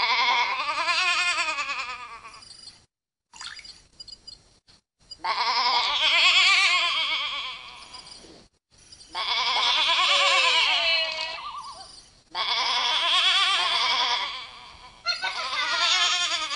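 Sheep bleating sound effects from a Furby tablet app: five long, wavering bleats a few seconds apart, as sheep are tossed on the touchscreen.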